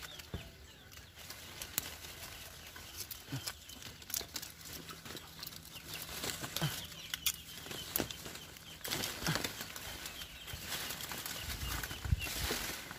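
Star apple tree leaves and twigs rustling and snapping as they are pushed through and handled, with many short sharp clicks and louder bursts of rustling about nine seconds in and again near the end.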